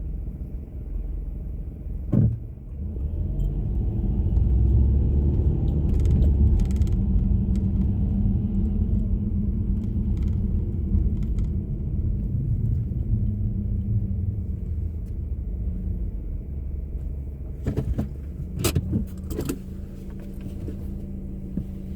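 A car's engine running with a steady low rumble. There is a sharp click about two seconds in and a few more clicks near the end.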